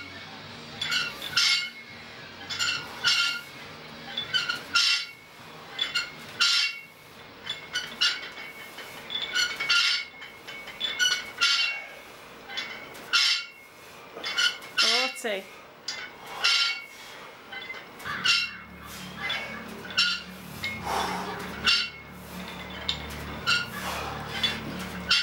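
Metal weight plates on two loaded curl barbells clinking and rattling with each curl rep. The clinks ring and come irregularly, about one or two a second.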